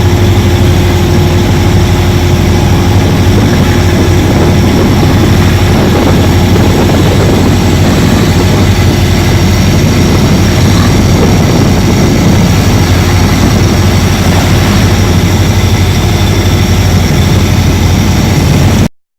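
Loud, steady engine drone with a strong low hum, holding an even pitch throughout, cut off abruptly near the end.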